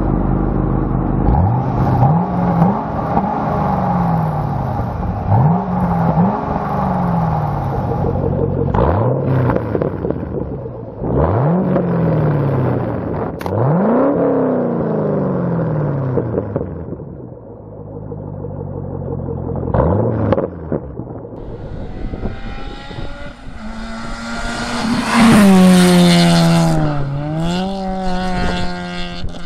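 2010 Chevrolet Camaro's LS3 V8 through a Borla ATAK cat-back exhaust, revved again and again at a standstill, each rev rising sharply and falling back. Near the end a different engine, a Honda Civic Type R's four-cylinder, revs up high, dips briefly and holds.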